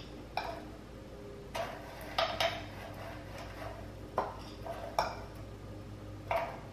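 About eight irregular clinks and knocks: a metal cookie scoop scraping and tapping in a glass mixing bowl, and a wooden tamper pressing graham-cracker crumb mixture into the cups of a metal mini muffin tin.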